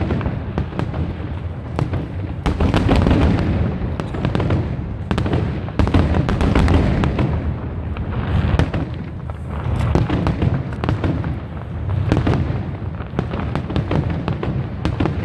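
Aerial fireworks display: a dense, continuous barrage of booms and sharp crackling bursts, swelling and easing every few seconds.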